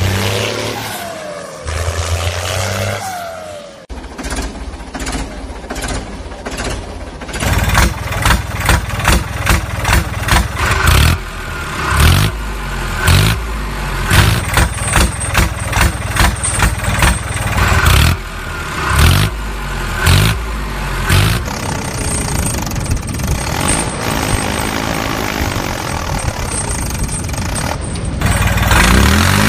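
A tractor engine sound effect: revving with rising pitch, then from about seven seconds in a steady pulsing chug of about two beats a second that evens out near the end.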